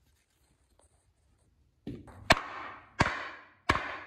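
Hammer blows on a wooden block held over a transmission output shaft, driving the bevel gear down onto the splined shaft. After about two seconds of quiet come four sharp knocks, the first lighter, then three roughly 0.7 s apart, each with a short ringing tail.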